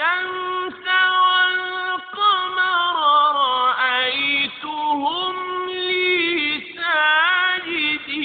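A single voice reciting Arabic in a slow, melodic chant, holding long notes with ornamented pitch turns and short pauses between phrases, in the style of Quran recitation.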